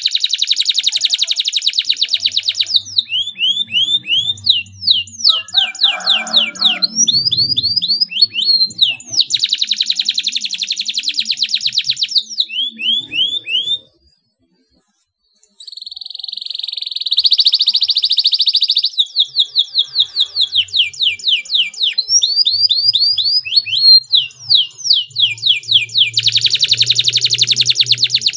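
Domestic canary singing: fast, tight rolling trills alternating with runs of sharp, high sweeping chirps, in long unbroken phrases. The song stops for about a second and a half midway, then picks up again with a rising note.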